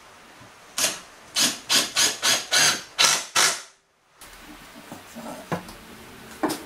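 A hand tool worked against the corner of a pine frame in about eight quick scraping strokes, roughly three a second. After a short break, a few light knocks on wood.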